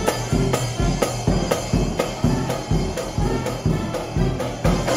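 Marching band playing, snare and bass drums keeping a steady beat of several strikes a second under a sustained low brass line from the sousaphone.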